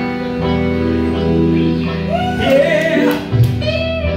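Live band music with singing: the band comes in loudly at the start with long held chords, and a voice sings from about two seconds in.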